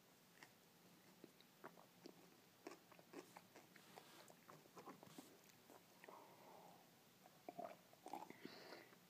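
Faint chewing and small mouth clicks, then a sip from a plastic cup near the end.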